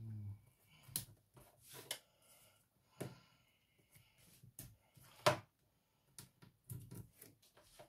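Card and crafting tools handled on a cutting mat: light taps, clicks and paper rustles, the sharpest click about five seconds in.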